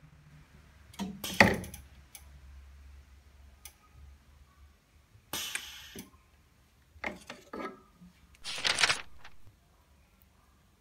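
Wax injector's mold clamp being opened and the rubber mold pulled out by hand: a series of sharp metal clacks and knocks with short scrapes, the loudest about a second in, and a longer scrape near the end, over a faint low hum in the first half.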